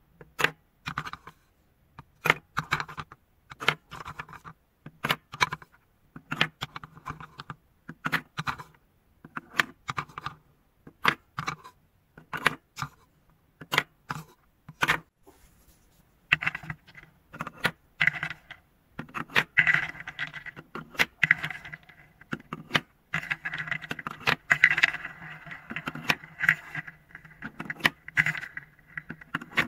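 Wooden balls knocking against a wooden spoon, bowl and cups as they are scooped and dropped, in repeated sharp clacks. From about halfway on, a steady rolling rumble joins the clacks as balls roll around inside a wooden bowl.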